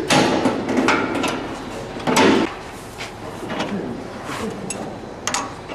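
Metal clanking and clattering as a clamp tool is fitted around a cow's hind hoof in a metal hoof-trimming crate. There are two louder clatters, one at the start and one about two seconds in, and sharp clicks near the end.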